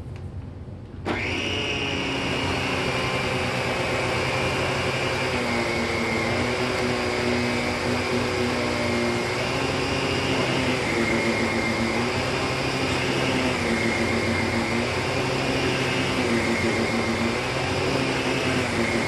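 Miele Callisto canister vacuum with an SEB228 electric power nozzle switching on about a second in and running steadily at full power on carpet. Its pitch dips and rises every two to three seconds as the nozzle is pushed forward and pulled back.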